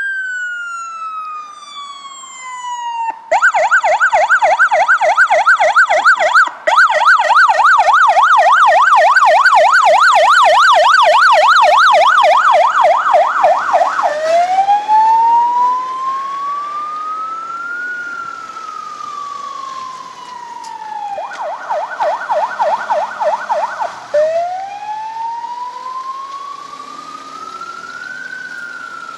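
Electronic siren of a fire brigade Ford Transit light rescue van on an emergency run, switching between a slow rising-and-falling wail and a rapid yelp. It is loudest during the long yelp as the van comes up and turns past close by, then grows quieter as it drives away while still alternating wail and yelp.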